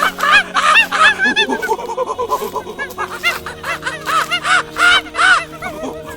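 Background music with steady held tones under a rapid run of short chirping notes.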